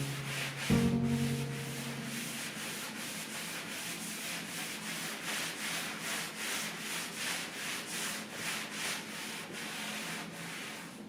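Quick, even back-and-forth rubbing strokes on a wooden tabletop, as when stain is being worked into the wood. Two ringing notes of background music sound in the first second.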